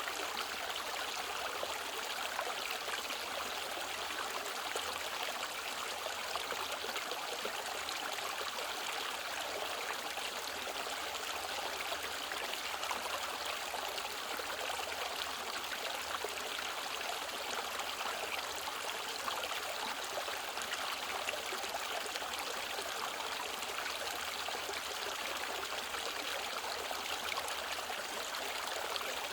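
Mountain valley stream, water running and splashing steadily over rocks.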